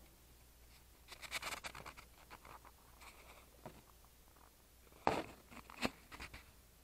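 Faint scratchy rustling and handling noise from a body-worn camera as its wearer moves, with two sharper clicks about five and six seconds in.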